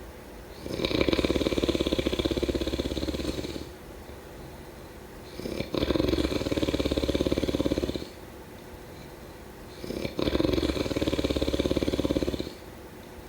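Snoring: three long rattling snores, about one every four and a half seconds, each lasting two to three seconds, with quieter gaps between.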